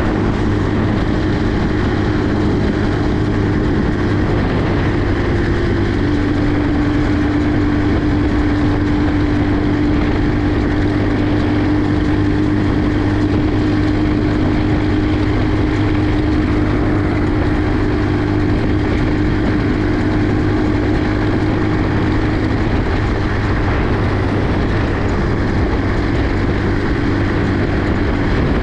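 Small 50cc quad ATV engine running at a steady cruising speed, its drone holding an even pitch apart from a slight drop about six seconds in.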